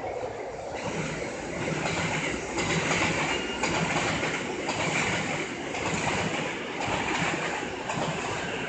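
JR East E233 series 7000 electric train pulling out of the platform: the whine of its motors and the rolling of its wheels as it picks up speed.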